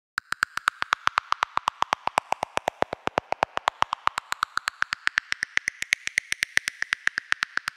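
Rapid, evenly spaced electronic ticking, about nine ticks a second, each tick with a faint pitch that creeps slightly higher as it goes: a synthesized ticking intro on the soundtrack leading into electronic music.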